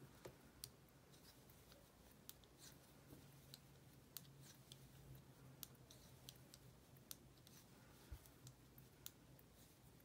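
Faint, irregular light clicks of 7 mm circular knitting needles tapping together as stitches are knitted.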